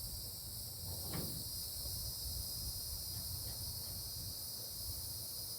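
Steady high-pitched chorus of insects, with a low hum underneath and a faint tap about a second in.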